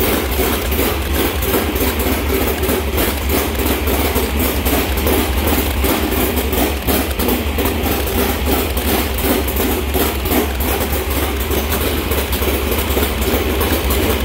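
Moss Racing 360 V8 race engine running at a steady idle, loud and unbroken.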